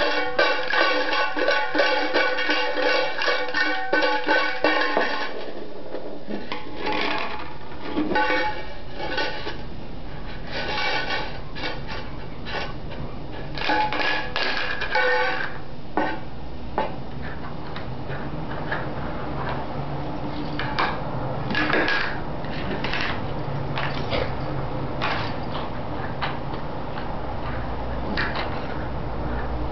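A can with caps inside being shaken by a baby: dense, rapid rattling with a ringing tone for about the first five seconds, then scattered bursts of rattling and clanks.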